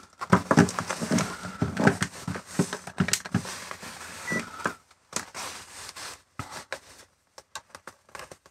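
Handling noise from multimeter test leads and probes: a close run of small plastic and metal clicks and rattles as the probes are picked up and set against a battery. The clicks thin out to a few separate ticks over the last few seconds.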